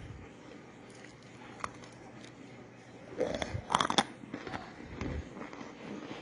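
Crunching bites into a crisp, microwave-baked cornstarch chunk: a few faint clicks, then a burst of sharp crackly crunches about three seconds in, loudest around the four-second mark, with a few smaller crunches after.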